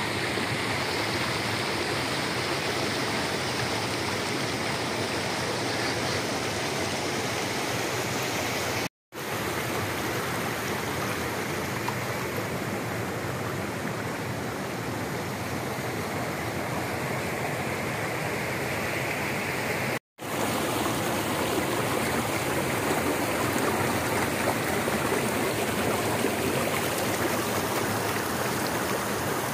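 Shallow stream water running steadily over and between rocks, an even rushing babble. It cuts out abruptly twice, briefly, about nine and twenty seconds in.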